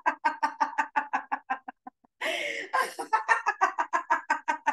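A woman laughing loudly in rapid, even "ha-ha-ha" pulses, about seven a second. She breaks off about two seconds in to draw a breath, then laughs on.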